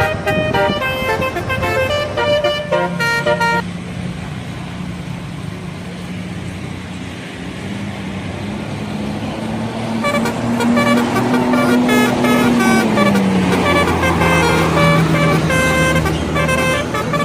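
Bus telolet horn playing a tune of short, quickly changing notes, stopping about three and a half seconds in and starting again about ten seconds in. Between the tunes a bus engine's steady drone is heard; it climbs slowly and drops in pitch about thirteen seconds in.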